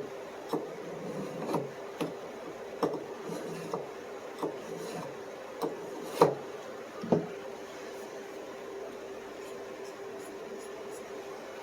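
A folding knife blade drawn in short strokes across the fine side of a small two-grit pocket sharpener, the final fine honing pass after the coarse side. A dozen or so uneven scrapes come in the first seven seconds, then stop.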